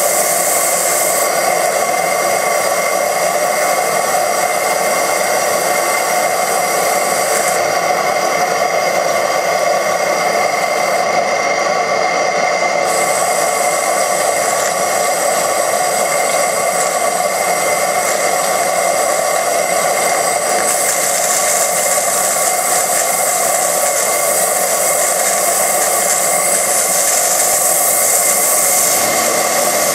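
Four-cylinder oscillating steam engine for a model boat running steadily on steam, a continuous hiss of exhaust steam over its mechanical running.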